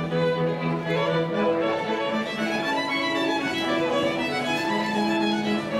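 String music led by a violin, with held notes in several parts moving slowly together.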